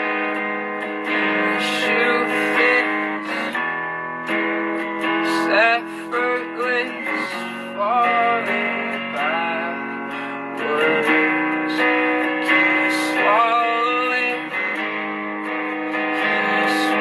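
Guitar played live, chords strummed and left ringing, with a few notes sliding up in pitch over them.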